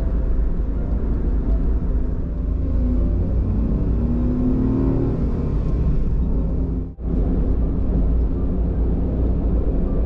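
Kei van engine and tyre noise while driving on the highway: a steady low drone, rising a little in pitch around the middle. It cuts out for an instant about seven seconds in.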